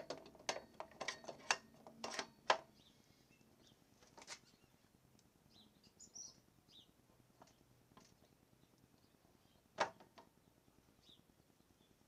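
Scattered sharp metal clicks and taps from hands working on a motorcycle's front axle and fork leg. They come several in quick succession over the first couple of seconds, the sharpest about two and a half seconds in, then a single click near the ten-second mark. A few faint high chirps sound in between.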